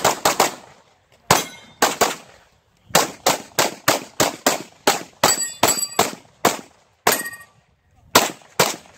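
Freedom Gunworks 9mm Major Open-class competition pistol firing about twenty shots in fast strings, with short pauses near one second, two and a half seconds and seven and a half seconds. Steel targets ring briefly after a few hits, about five to seven seconds in.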